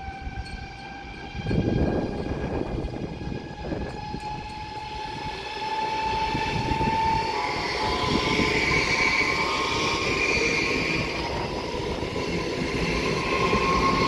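EVS1 Sapsan high-speed electric train (Siemens Velaro RUS) passing through the station at speed: a rushing noise of wheels and air with a steady high whine over it. The noise swells about a second and a half in and grows louder as the cars sweep past.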